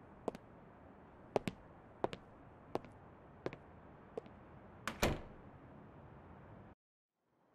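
Footsteps on a hard floor, a sharp click roughly every 0.7 seconds, walking away. About five seconds in, a door shuts with a heavier knock.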